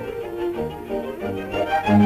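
Early sound-cartoon orchestral score led by bowed strings, with violins and low strings playing quick, shifting notes.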